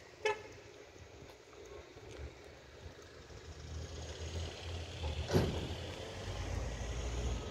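Fishing-harbour ambience: a steady low rumble, with a short high squeak near the start and a single sharp knock about five seconds in.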